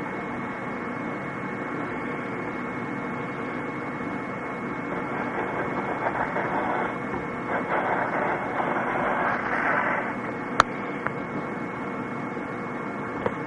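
Steady hiss with a faint electrical hum, over which scratchy strokes of a pen or pencil on paper swell up midway. A single sharp click comes about ten and a half seconds in.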